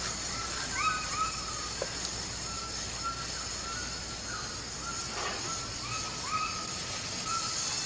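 Tropical forest ambience: a steady high-pitched drone, typical of insects, with a short chirping animal call repeated about twice a second.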